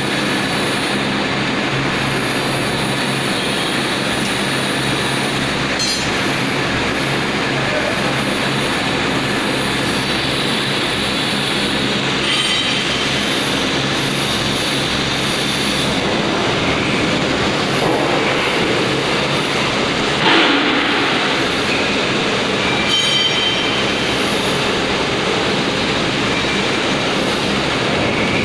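Vertical baler machine running: a steady mechanical hum and rush of noise, with a few short clicks and one heavier knock about 20 seconds in.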